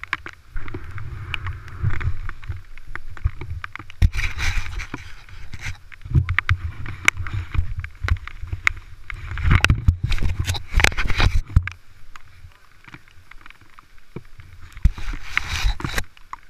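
Dirt bike ridden slowly over a wet, rocky trail, heard from a helmet-mounted camera: an uneven low rumble with many sharp knocks from the bumps, and a few louder surges of hiss.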